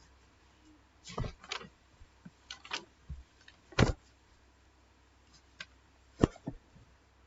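A run of short, sharp clicks and knocks at irregular intervals, about nine in all, with the two loudest coming near four seconds in and a little after six seconds in, over a faint steady hum.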